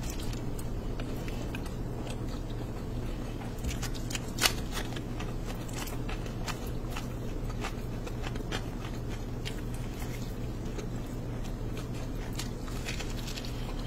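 Close-up eating sounds: a bare hand squishing and kneading oily rice and meat curry on a plate, with many small wet clicks and crackles, then a mouthful being chewed. One sharp click stands out about four and a half seconds in, over a steady low hum.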